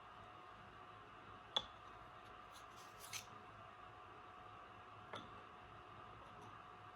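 Quiet room tone with a few light clicks and taps: a sharp one about a second and a half in, a softer, scuffing one near three seconds, and a faint one near five seconds.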